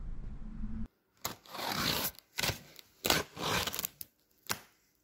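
Cardboard box and packaging being handled, heard as several separate bursts of rustling and scraping with near silence between them. A low steady hum cuts off about a second in.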